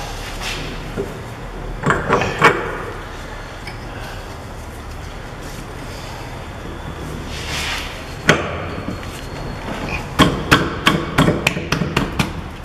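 Metal knocking as a drive shaft's splined end is worked through the steering knuckle into the front wheel hub bearing. There are a couple of knocks about two seconds in, a scrape followed by one sharp knock past the middle, and then a quick run of about ten knocks near the end as the shaft is driven home.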